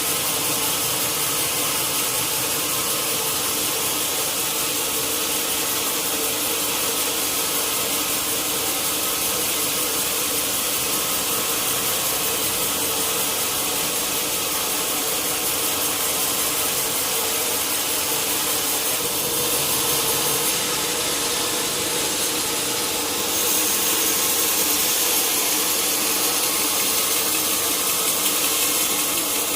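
Sawmill saw cutting steadily through a large log: a continuous sawing hiss over the machine's steady hum, getting slightly louder near the end.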